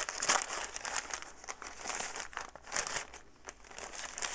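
Grey plastic poly mailer bag crinkling and rustling in a run of irregular crackles as hands grip and pull at it to get it open.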